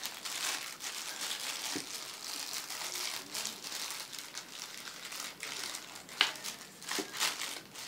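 Crinkling and rustling of packaging being handled while unpacking, with scattered small clicks and one sharper click about six seconds in.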